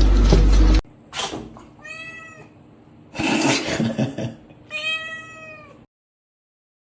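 A domestic cat meowing: two long, drawn-out meows that rise and fall in pitch, with shorter rougher cries between them. It opens with a moment of loud noise that cuts off suddenly, and the sound drops to silence near the end.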